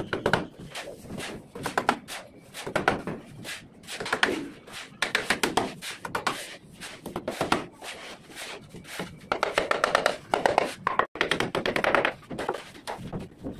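A mason's hammer knocking rapidly and lightly on the edge of a concrete kitchen slab, in bursts of many quick taps with short pauses between them.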